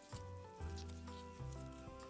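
Background music: a calm tune of held notes over a bass line that steps to a new note about every half-second to second. Beneath it are faint sticky crackles of glitter slime being stretched and kneaded by hand.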